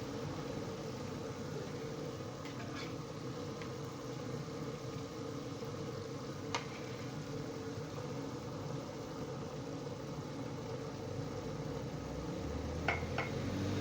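Chicken pieces deep-frying in hot oil, a steady frying noise with a low rumble under it, nearly cooked and turning golden. A few faint clicks sound about three seconds in, midway and near the end.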